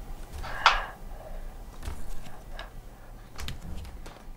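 Cutlery clinking against dishes at a dinner table: a few scattered light clicks, with one sharper clink about two-thirds of a second in, over a low steady hum.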